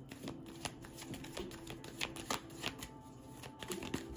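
A tarot deck being shuffled by hand: a rapid, irregular run of light card clicks and snaps.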